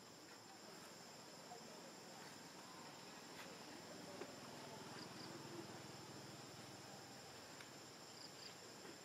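Faint steady high-pitched insect drone, crickets chirring in two thin unbroken tones, with a few soft faint ticks.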